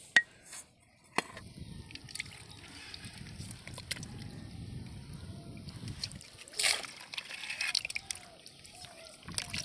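Water sloshing and splashing in a plastic tub as a metal bowl scoops out a tangle of live stinging catfish, with a couple of sharp knocks near the start and a louder splash about two-thirds of the way through.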